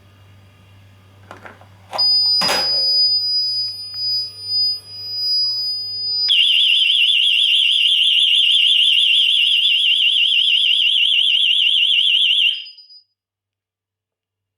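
Paradox wireless alarm siren set off in a test of the armed system. A loud high steady tone comes on with a knock about two seconds in. A fast-warbling siren takes over about six seconds in and cuts off abruptly near the end.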